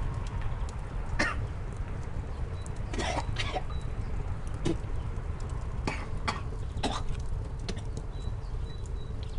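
Outdoor ambience: a steady low rumble with a handful of short, sharp sounds scattered through it.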